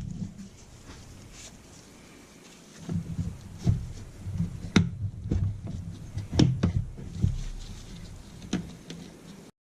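Handling noise and sharp clicks and knocks of a screwdriver and plastic and metal parts being worked on a Stihl MS 200T chainsaw during reassembly. The sound cuts off abruptly near the end.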